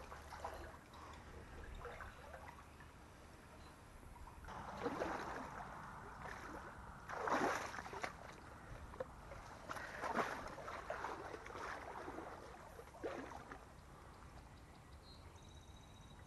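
Legs wading through shallow creek water: four separate sloshing surges a couple of seconds apart, over a faint steady stream.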